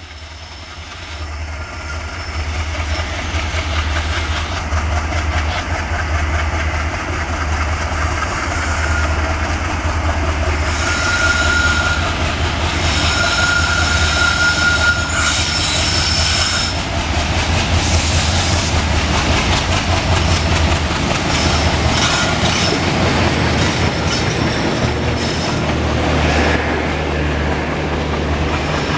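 Express train coaches rolling past as the train pulls out: a steady rolling rumble with clickety-clack over the rail joints that builds over the first few seconds, and brief high wheel squeals around the middle.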